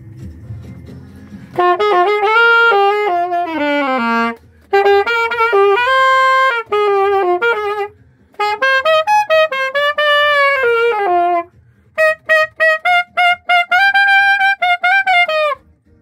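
Saxophone playing solo melodic phrases: four phrases separated by short breaths, the first ending in a downward run and the last made of short detached notes.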